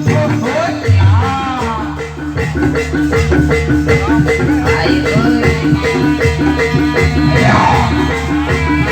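Music with fast, evenly repeating mallet-struck notes over a steady low drone, with higher pitched lines gliding up and down above them.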